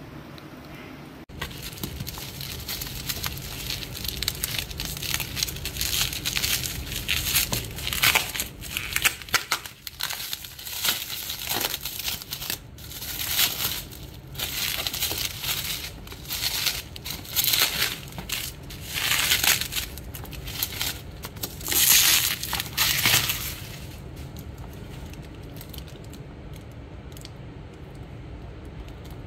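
Plastic bubble-wrap packaging crinkling and rustling in irregular bursts as it is handled and unwrapped. It starts about a second in and stops some five seconds before the end.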